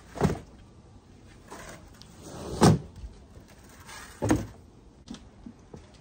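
Three loud thumps from things being handled and set down, the loudest in the middle after a short sliding scrape, then a few light clicks near the end.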